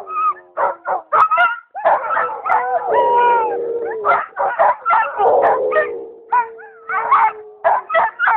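A team of sled dogs in harness barking and yipping over one another in quick, short calls, with drawn-out whining howls about 3 s in and again from about 5 s to near the end.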